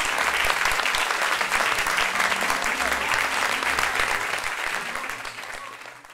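Audience applauding, many hands clapping steadily; it fades out near the end.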